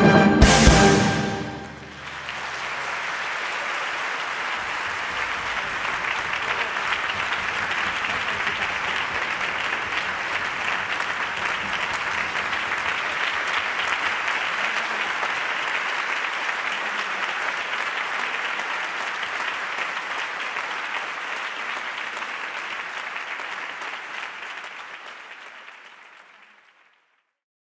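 A concert band's loud closing chord, cut off about a second in, then a large audience applauding steadily; the applause fades away near the end.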